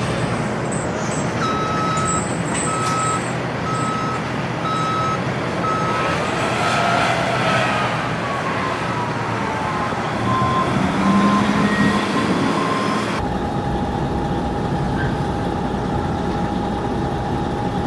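Heavy earthmoving machinery (mining shovels and haul trucks) running with a steady engine din. A backup alarm beeps at an even pace through much of it, a tone slides down in pitch about halfway, and near the end a steady tone holds.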